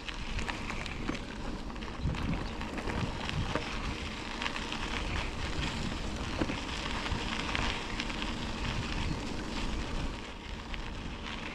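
Tyres rolling over a crushed, compacted stone trail surface: a steady crackling crunch full of small pops, over a low rumble.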